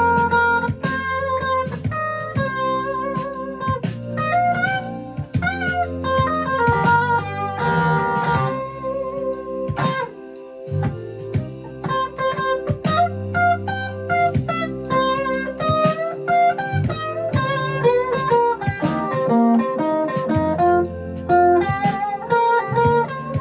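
Epiphone hollow-body electric guitar played in a blues style: a melodic line of quick picked notes with some string bends, over held low notes.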